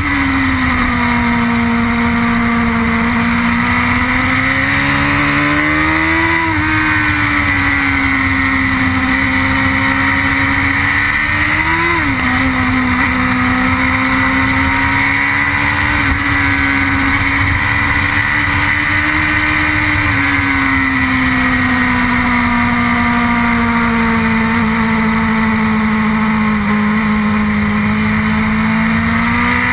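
BMW S1000RR superbike's inline-four engine at high revs, heard from on board with steady wind rush. The engine note climbs and drops sharply at upshifts about six and twelve seconds in, then sinks slowly and climbs again near the end.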